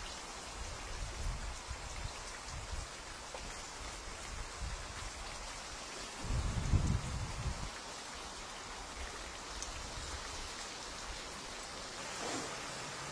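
Steady hiss of outdoor background noise, with low muffled rumbles in the first few seconds and a louder one about seven seconds in.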